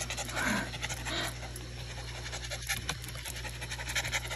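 Shiba Inu panting quickly and steadily with its mouth open.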